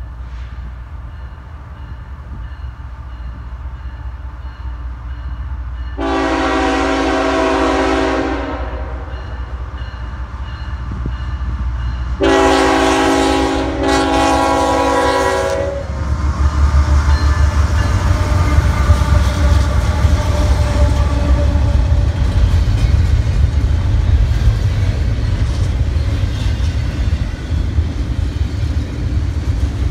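Approaching freight train: the locomotive's multi-note air horn sounds a long blast about six seconds in, then two more blasts back to back from about twelve seconds. From about sixteen seconds the locomotives pass close with a loud, steady low rumble and the clatter of wheels on the rails.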